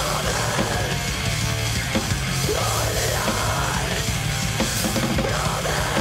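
Blackened thrash/death metal song: distorted bass and guitars with a drum kit, and a harsh screamed vocal.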